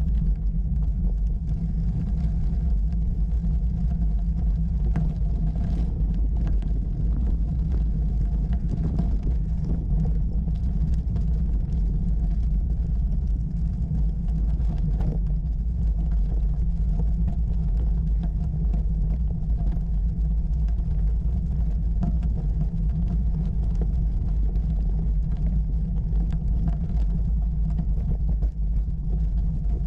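Bicycle riding up a rough gravel track, heard through a bike-mounted camera: a steady low rumble from the tyres and the mount's vibration, with scattered small rattles and crunches of stones.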